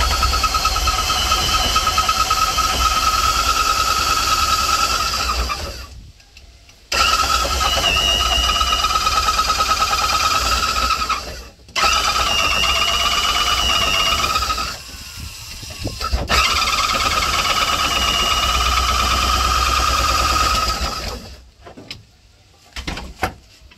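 A motor-driven machine runs in four long bursts of a few seconds each, stopping briefly between them. Over a deep rumble it makes a steady whine and a higher tone that wavers in pitch, and it stops for good a few seconds before the end.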